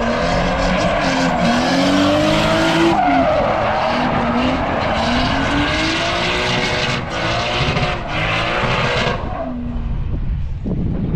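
Nissan RB straight-six engine revving up and down under load while the tyres squeal and skid in a drift. About nine seconds in the tyre noise drops away and only the engine carries on, a little quieter.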